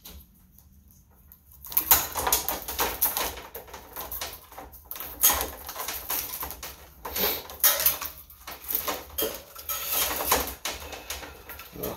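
A long thin cable being uncoiled and pulled through the hands: irregular rustling, scraping and light plastic clicks that start after a quiet second or so.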